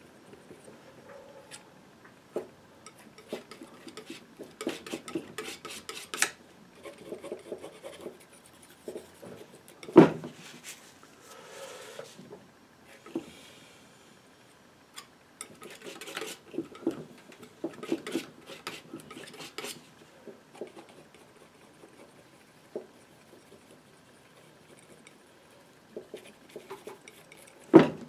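Steel painting knife scraping and dabbing oil paint onto a painting panel in clusters of short, irregular strokes. Two sharp taps of the knife stand out, one about a third of the way in and one right at the end.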